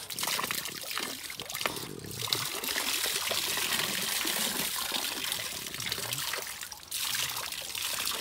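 Water trickling and splashing steadily, with brief dips about two seconds in and again near seven seconds.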